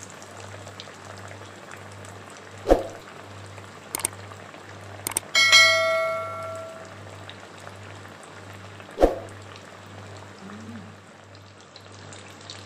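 Bhetki fish fillet coated in egg and biscuit crumbs frying in hot oil in a kadai, a steady sizzle, with two dull thumps. About five seconds in, a couple of clicks and then a bell-like chime that rings for a second or so: a subscribe-button sound effect.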